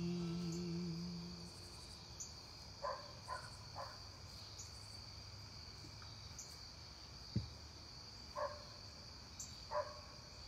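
A steady chorus of crickets at dusk, with a few short distant calls and a thump a little past the middle. The keyboard's last held chord fades out over the first second or two.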